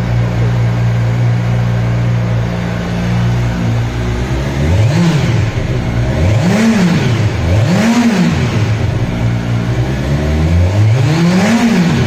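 Kawasaki Ninja 1000SX's inline-four engine on its stock single-sided exhaust, idling steadily and then revved four times in the second half: three quick throttle blips and a slower, longer rev near the end.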